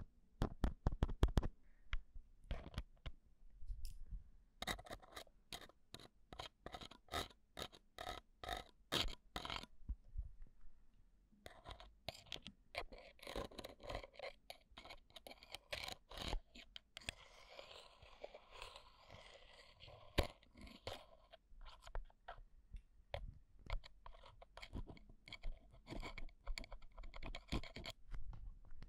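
A metal ear pick scraping and scratching at the opening of an ear-shaped microphone: a rapid run of close, crackly scrapes and clicks, with a few brief pauses.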